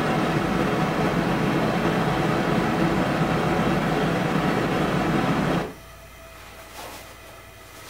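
Homemade Frosty T propane venturi forge burner running with a steady rushing flame noise. The noise cuts off suddenly about five and a half seconds in as the flame goes out, leaving faint background with a couple of small clicks.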